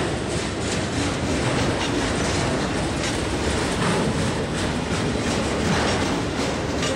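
Autorack freight cars rolling past close by: a steady rumble of steel wheels on rail, with irregular clacks and rattles as the wheels cross the track.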